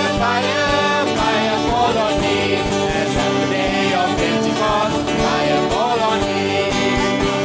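Live gospel worship band playing, with voices singing over keyboard, guitar and a steady drum beat.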